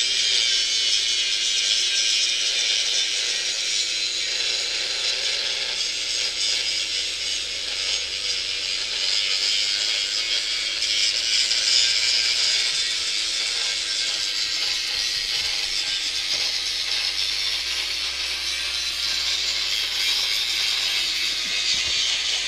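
Power grinder grinding down weld seams on a welded drift trike frame, running steadily under load with a continuous high grinding noise.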